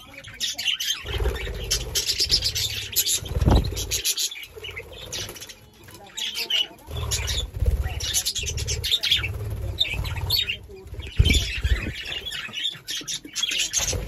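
A flock of budgerigars chirping and chattering continuously. Several flurries of close wingbeats come through as birds take off and fly past.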